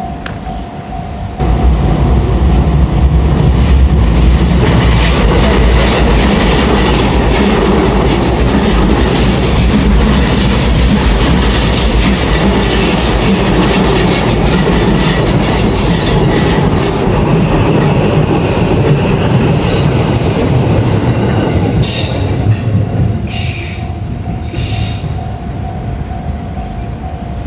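A train passing over a level crossing. A loud rumble of wheels on rail starts suddenly about a second and a half in, runs for about twenty seconds with clicks from the wheels, then fades. The crossing's warning bell rings steadily before the train and is heard again as it dies away.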